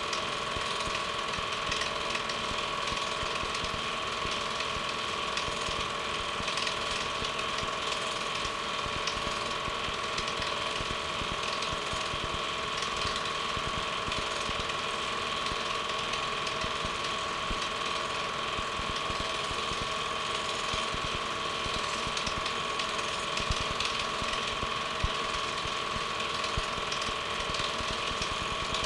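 Home movie film projector running: a steady whine under a fast, even mechanical clatter from the film-advance mechanism.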